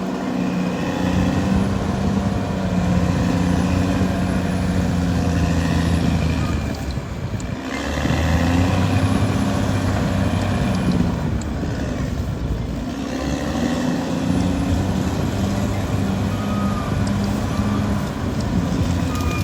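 Caterpillar D6R XL bulldozer's diesel engine running under load as it works. The engine note sags twice and then climbs back.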